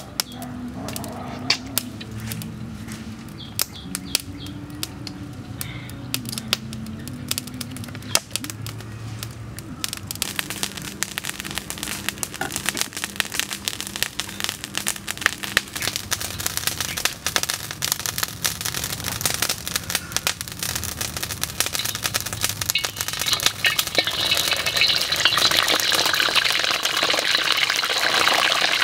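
Frog pieces deep-frying in hot oil in a wok over a wood fire: a sizzle full of crackles and pops that sets in about a third of the way in and grows louder over the last few seconds.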